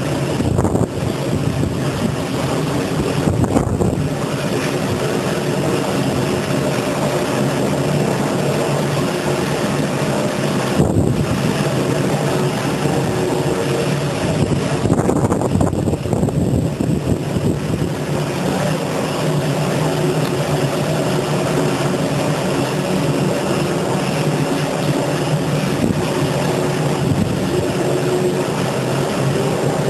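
A machine running steadily: a constant motor drone holding several steady tones.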